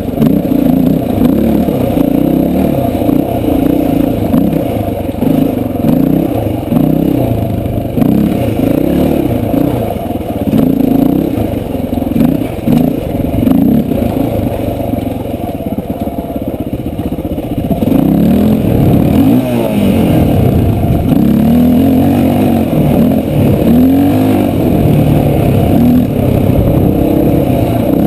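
Dirt bike engine being ridden, its pitch rising and falling again and again as the throttle is worked. It gets louder with longer revs about two-thirds of the way in.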